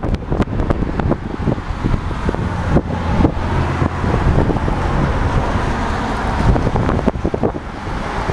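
Strong gusty wind buffeting the microphone, a heavy low rumble broken by rapid irregular thumps, with road traffic mixed in.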